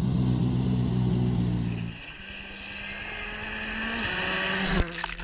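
Skoda Fabia R5 rally car's turbocharged 1.6-litre four-cylinder engine held at steady revs for about two seconds. Then a rally car's engine and tyres at a distance, growing steadily louder as it approaches, with a short sharp crack near the end.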